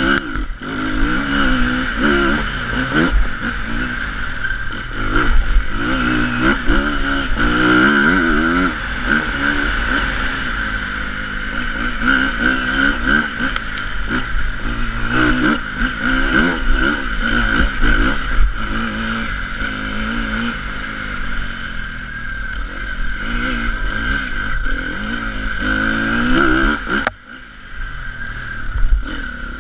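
Enduro dirt bike engine heard on board while ridden hard, revving up and falling back again and again as the rider accelerates and shifts along a dirt track. The sound drops off briefly near the end as the throttle is shut, then picks up again.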